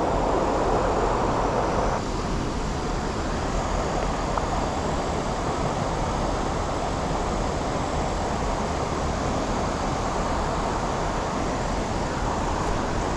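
Steady rush of fast, high creek water pouring through current below a dam, a little fuller for the first two seconds and then even.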